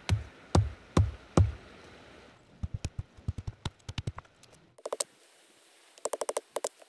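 A stone hammered down on a wooden stick resting on rocks, splitting it without any cutting tool: heavy knocks about two or three a second for the first second and a half, then lighter, quicker taps, and two short clusters of sharp clicks near the end.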